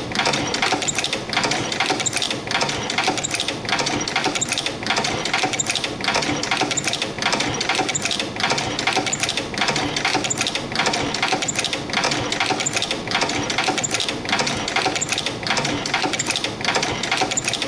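CNC extension spring making machine running in production, coiling 0.5 mm wire and forming German hooks. Its mechanism gives a steady, rapid clicking clatter that repeats in a cycle about once a second.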